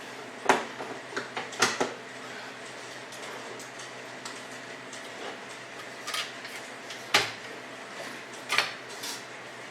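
A scattered series of sharp knocks and clicks, like hard objects being handled and set down, over a steady low hum. The knocks are loudest about half a second in and about seven seconds in.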